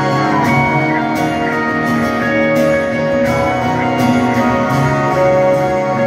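A live rock band, guitar-led with sustained chords, plays over a steady beat with cymbal strokes about twice a second. It is heard through a phone microphone from the arena stands.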